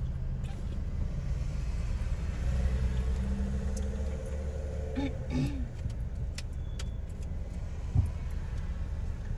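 Steady low rumble of a car's engine and tyres on the road, heard from inside the moving car, with one short thump near the end.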